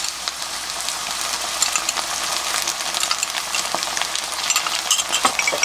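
Garlic scapes frying in oil in a nonstick pan as soy sauce is poured in: a steady sizzle with scattered crackles and pops.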